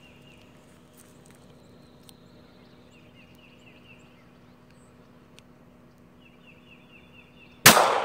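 A single pistol shot about three-quarters of a second before the end, sudden and by far the loudest thing, with a ringing tail. Before it, a quiet outdoor background with a bird's short high chirping call three times.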